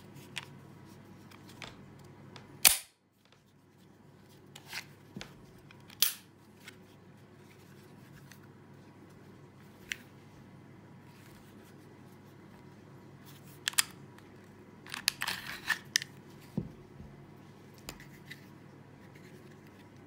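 Sharp clicks and knocks of a Glock 26 9mm pistol being stripped by hand: its slide, parts and polymer frame clicking and sliding together. The loudest click comes about three seconds in, and a quick run of clicks comes around fifteen seconds.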